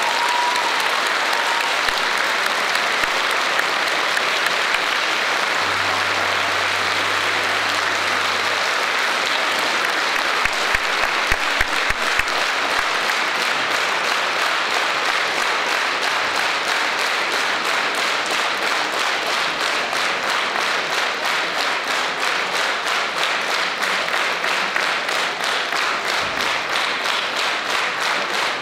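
Concert-hall audience applauding. In the second half the clapping falls into a steady rhythm together, about two claps a second.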